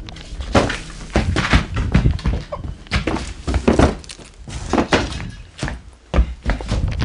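Footsteps over junk and litter on a floor: an irregular run of knocks, thuds and rustling, about two a second.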